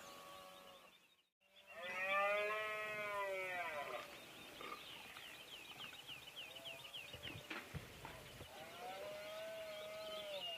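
Red deer stag roaring during the rut: one loud, drawn-out roar about two seconds in that rises and falls in pitch, then a fainter roar near the end. Faint rapid chirping runs underneath.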